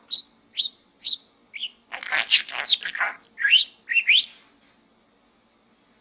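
Pet budgerigar chirping and chattering: a few short single chirps, then a quick burst of warbled chatter about two seconds in, then a few rising chirps. It falls quiet at about four and a half seconds.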